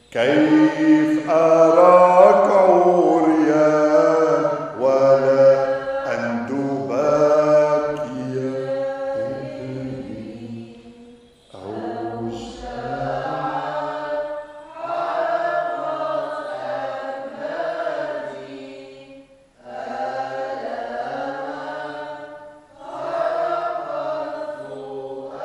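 Slow Maronite Arabic hymn sung in chant style. The phrases are long and drawn out, with short breaks for breath about 11 and 19 seconds in.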